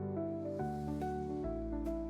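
Background music: gentle sustained keyboard chords changing about every half second.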